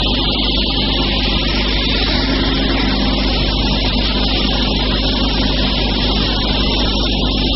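KP-62 round-stick turning machine running steadily: a constant motor hum with a dense hiss on top, unchanging throughout.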